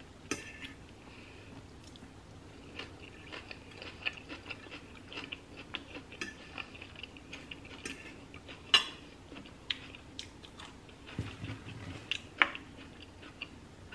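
Chewing and crunching of a mouthful of shredded cabbage salad, with many small crackles and sharp clicks from the mouth and from a fork and spoon against the dishes; two clicks stand out, one near the middle and one near the end.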